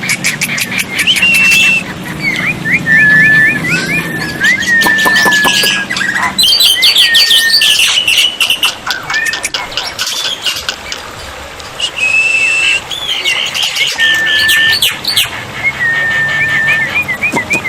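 Black-winged mynas (jalak putih) calling: a string of loud whistled notes and sliding chirps mixed with fast clicking chatter.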